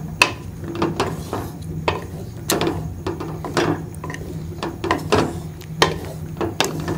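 A spoon scraping and knocking against a metal kadai while stirring chicken pieces in yogurt masala, in irregular strokes about two a second.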